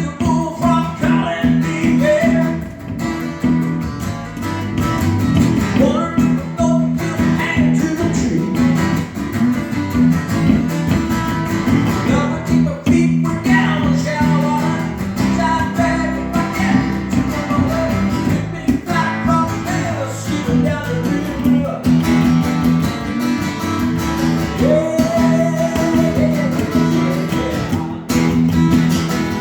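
Guitar playing, plucked and strummed, without words.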